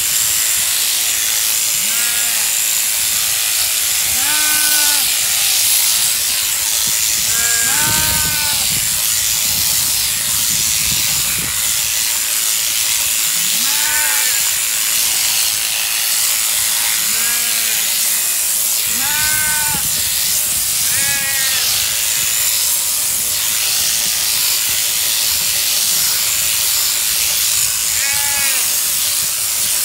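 Sheep bleating repeatedly, about eight short calls, over the steady high-pitched buzz of a sheep-shearing handpiece cutting through fleece.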